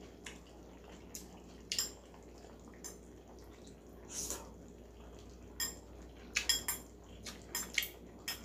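Eating utensils clicking and clinking against a bowl and hotpot as food is picked up, a scattering of light separate clicks with a quick cluster near the end.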